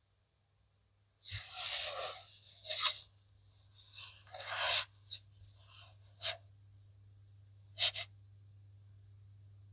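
Blue Akita Inu's irregular, noisy breaths through the nose while asleep, starting about a second in with three breathy bursts, then a few short sharp clicks over a faint steady low hum.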